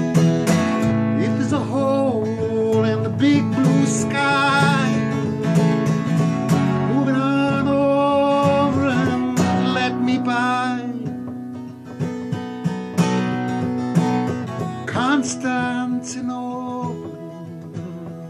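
Steel-string acoustic guitar strummed in a country-folk style, with a man's singing voice over it for roughly the first half. After that the guitar carries on alone, strummed more sparsely.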